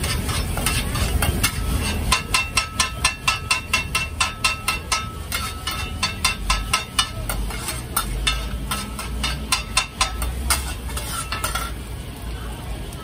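Metal spatula clanging and scraping against a wok while seafood pad thai noodles are stir-fried over sizzling heat, about three ringing strikes a second. The clanging stops near the end.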